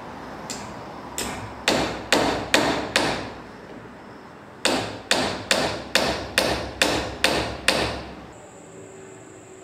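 Hammer driving a long steel nail into a thin pine strip. It starts with light taps and builds to a run of six blows, then after a short pause eight more even blows land at about two a second.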